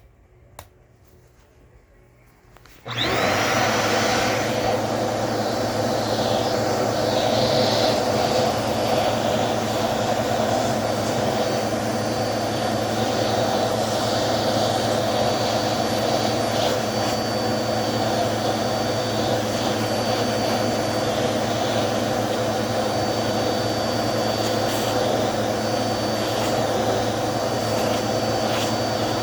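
Vacuum cleaner switched on about three seconds in, its motor whining up to speed and then running steadily with a high whine on top, used to suck dust off a dirty vacuum filter.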